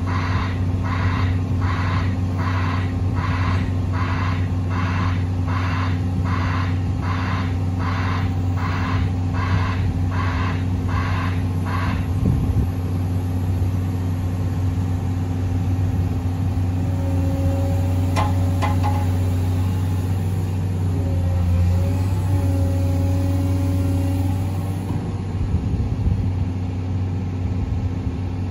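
CAT M318D wheeled excavator's diesel engine running steadily while its hydraulic high-rise cab lowers. A warning alarm beeps about one and a half times a second for the first twelve seconds, then stops. Later a wavering hydraulic whine and a couple of sharp clicks come in over the engine.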